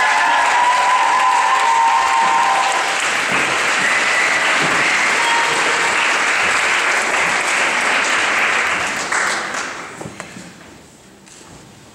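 Audience applauding, a steady patter of many hands clapping that dies away about nine to ten seconds in.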